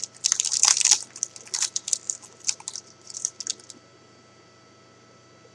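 A 2013 Topps Platinum football card pack being torn open, its wrapper crinkling in a quick run of sharp crackles that thins out and stops about four seconds in.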